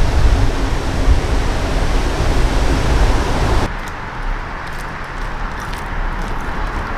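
Steady rushing noise of road traffic on an elevated highway bridge, with a low rumble. About four seconds in it cuts off abruptly to a much quieter outdoor background with a few faint clicks.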